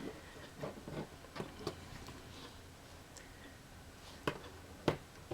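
Light, irregular clicks and taps from handling a plastic model railway turnout and small tools, the two sharpest near the end.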